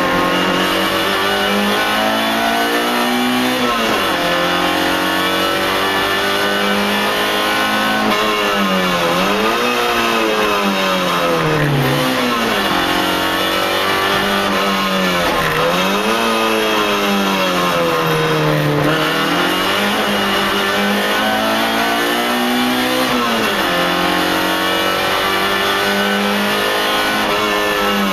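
A racing car's engine heard from inside the cabin, revving hard through the gears: its pitch climbs under acceleration, drops at each gear change, and several times falls and climbs again as the car brakes for a corner and powers out.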